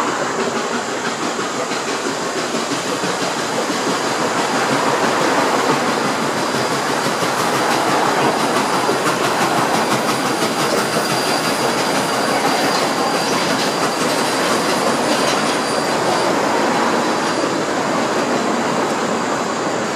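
Nickel Plate Road 765, a 2-8-4 Berkshire steam locomotive, and its passenger cars rolling across a steel girder bridge: a steady rumble of wheels on rail, with a faint high wheel squeal through the middle.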